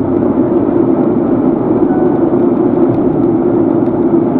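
Steady road, tyre and engine noise heard inside a car's cabin while driving at speed on a highway.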